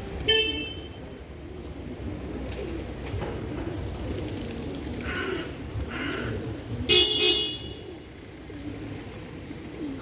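A flock of feral rock pigeons cooing steadily. A short car-horn toot sounds just after the start, and a double toot about seven seconds in.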